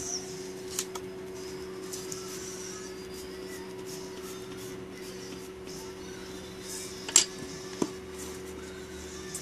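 Graphite pencil sketching on paper, light scratchy strokes, over a steady low hum. A sharp tap about two-thirds of the way in, with a smaller one just after.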